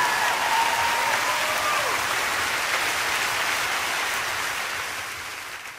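Studio audience applauding, fading out near the end.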